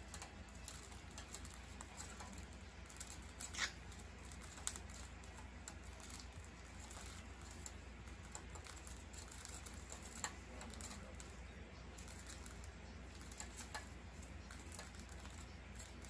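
Two cockatiels sparring: faint, irregular clicks and taps of beaks clacking and pecking at each other, with a few sharper clacks among them.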